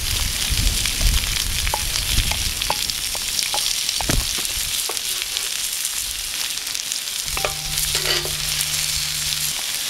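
Hare back straps frying on a hot flat griddle over a wood fire, a steady sizzle. A few light clicks and scrapes of cooking utensils come in the first half and again near the end, and a low steady hum joins for about two seconds near the end.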